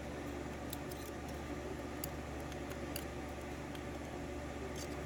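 Faint, scattered small metallic clicks and ticks, about half a dozen, as metal tweezers pick at tiny lock pins, springs and wafers from a disassembled pin-tumbler lock, over a steady low hum.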